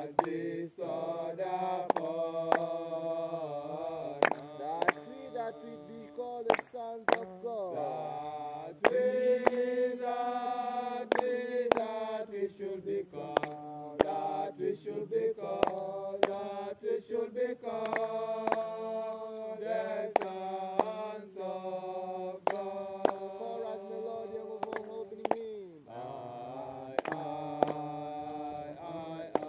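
Voices chanting a slow hymn in long, drawn-out held notes, with irregular sharp knocks throughout.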